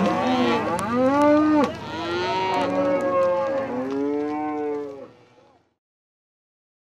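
A herd of Black Angus cattle bawling, many calls overlapping at once, fading out about five seconds in.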